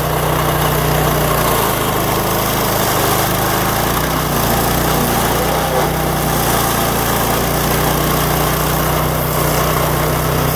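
Power King PK0803 stump grinder's small gas engine running steadily at an even speed.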